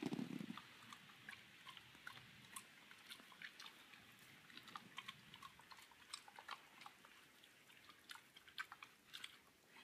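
A dog chewing a caught moth: faint small crunches and clicks, with the loudest, fullest crunch right at the start.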